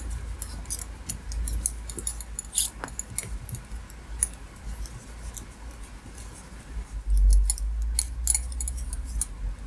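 Double-pointed knitting needles clicking and tapping against each other in an irregular patter as stitches are knit in the round, with low handling thuds about seven seconds in.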